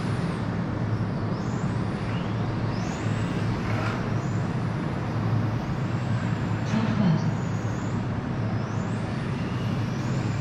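Electric 1/10-scale RC touring car lapping a carpet track: its high motor and gear whine rises in pitch along each straight and falls away into the corners, several times over, above a steady low hum.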